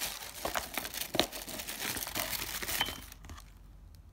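Tissue paper crinkling and rustling as a hand rummages through a packed box, with a few sharp clicks of small plastic jars knocking together; it dies down about three seconds in.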